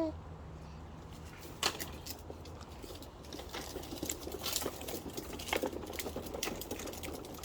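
Irregular light clicks and crackles, a few a second, starting about a second and a half in and getting busier, over a faint steady low hum.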